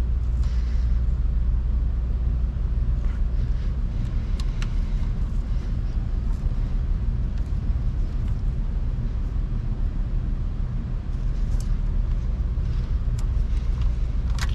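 A small hand ratchet giving a few scattered clicks as the vacuum pump's bolts are snugged down into the cylinder head's cam cradle, over a steady low hum.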